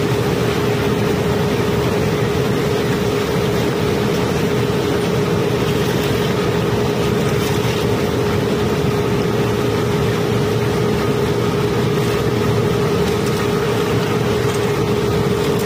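Cobblestones flowing continuously down a metal unloading trough during barge unloading, a dense rumble and rattle of stone, over the drone of running machinery with a constant hum. The sound holds level and does not change.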